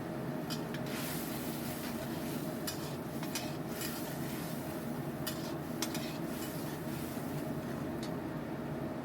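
Kitchen utensils clinking and scraping against cookware, in short irregular clicks, over a steady low hum.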